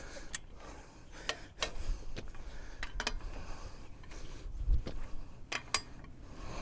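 Sharp metallic clicks of a click-type torque wrench and socket as a truck's wheel lug nuts are torqued down, about half a dozen at irregular intervals, with a dull low thud partway through.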